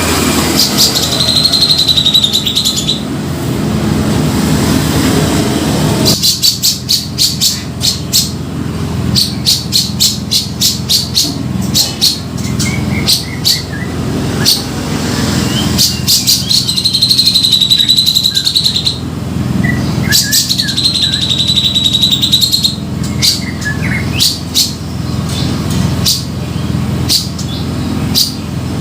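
Grey-cheeked bulbul (cucak jenggot) calling: long, even whistles alternating with fast runs of sharp, chattering notes. A steady low rumble runs underneath.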